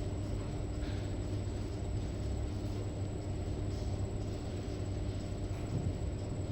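Steady low mechanical rumble with a faint constant hum, unchanging throughout.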